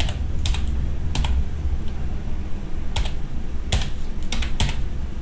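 Typing on a computer keyboard: slow, irregular key clicks, a few at a time with a pause of over a second, over a steady low hum.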